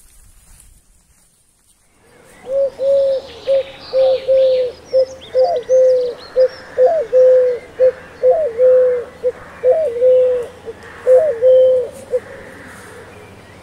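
A dove cooing: a repeated phrase of low, hollow coos, several with a short rising note, coming about every second and a half. Small birds chirp faintly behind it.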